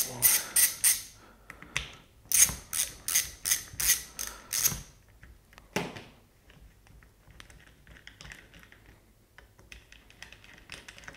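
Ratchet handle with a T30 Torx bit clicking as it undoes the Torx bolts on a Wabco air suspension compressor: a short run of clicks at the start, a longer run of about three clicks a second from about two seconds in, and one last click near six seconds. After that only faint handling sounds.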